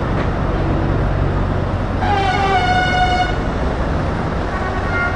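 A truck horn sounds once, about two seconds in, for just over a second, its pitch dipping slightly at the start, over the steady low running of queued diesel truck engines.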